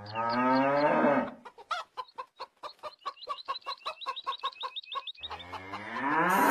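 Chickens: a long rising call in the first second, then a quick even run of clucks, about five a second, with high chirps repeated over them. A second rising call builds near the end.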